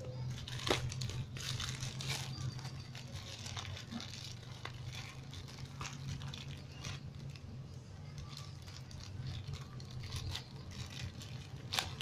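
Thin red plastic mailer bag crinkling and crackling as hands pull it open, in many short sharp crackles, over a steady low hum.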